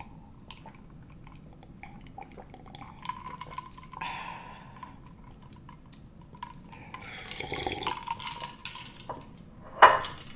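Sips and gulps of an iced drink from a glass jar, with the liquid sloshing. Just before the end, the glass jar is set down on the table with one loud knock.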